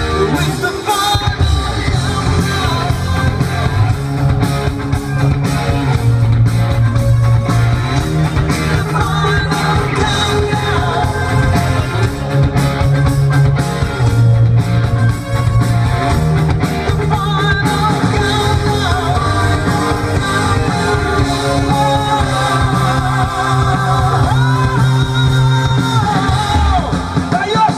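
Rock-style music with a singing voice and a sustained bass line.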